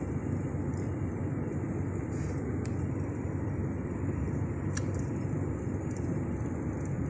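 Car driving, heard from inside the cabin: a steady low rumble of engine and tyre noise, with a couple of faint clicks partway through.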